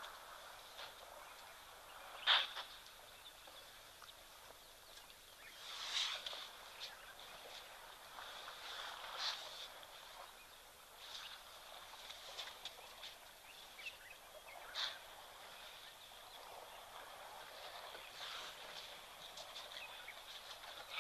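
Faint outdoor bush ambience: birds give short, sharp calls every few seconds over a steady high-pitched hum.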